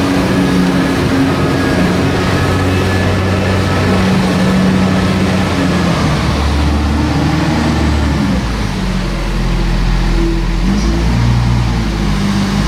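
Heavy diesel farm machinery working, with the engine notes shifting up and down under load as maize is pushed into the clamp and compacted. A deeper engine rumble grows stronger about eight seconds in.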